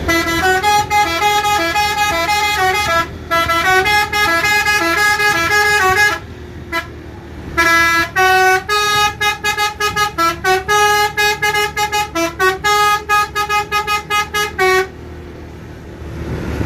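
Bus's Basuri telolet musical horn playing a melody of quickly changing notes. It breaks off briefly about six seconds in, then plays a faster run of short staccato notes that stops near the end.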